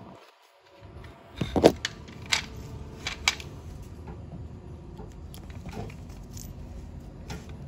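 Refrigerator's power plug and cord handled and pushed into an outlet: a few sharp clicks and knocks, the loudest about a second and a half in, over a low steady hum.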